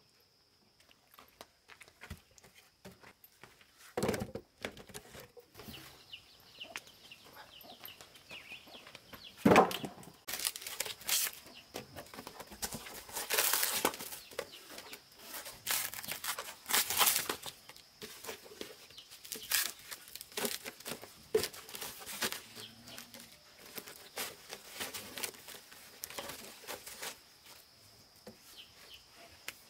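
Two sharp wooden knocks as planks are set down on a woodpile, then hands pulling and breaking dry strips off a rotten log: a long run of short cracking and tearing noises.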